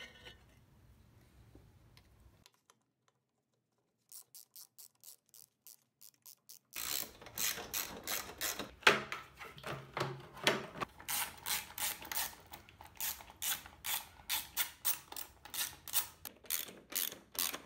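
Hand ratchet clicking in quick runs of strokes as fasteners on a lawnmower engine's cover are tightened. Quiet for the first few seconds, with sparse clicks before the rapid runs start.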